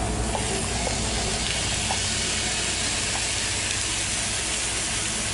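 Chopped onion and other soffritto vegetables sizzling steadily in hot olive oil in a frying pan as the onion goes in.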